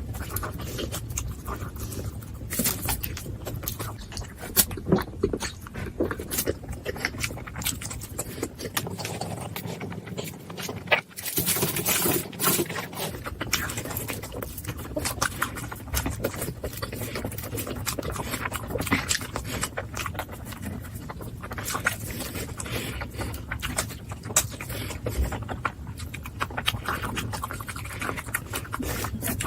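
Close-miked chewing and mouth sounds of someone eating momo dumplings: a steady run of small clicks and smacks.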